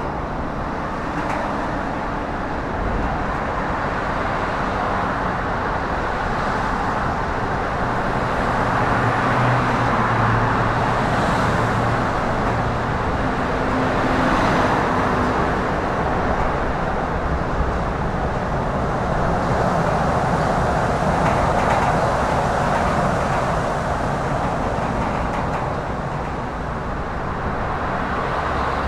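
Steady road traffic noise, a continuous rushing hum that swells and eases a little.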